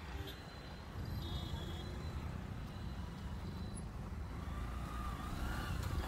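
Road traffic from inside the flow of vehicles: a steady low rumble of engines and tyres.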